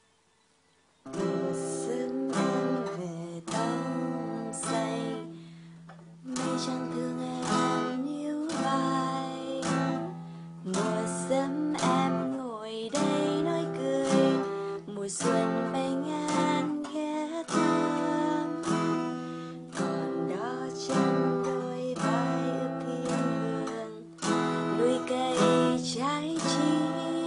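Acoustic guitar strumming chords in a steady rhythmic pattern, starting about a second in.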